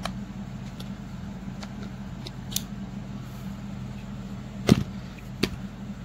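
Clicks and knocks from a Worx Sonicrafter oscillating multitool's plastic body being handled and set down, the loudest knock a little before five seconds in. A steady low hum runs underneath.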